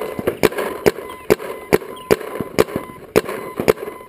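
Paintball marker shots: a Proto Reflex Rail electronic marker firing a steady string of sharp pops, roughly two to four a second and unevenly spaced.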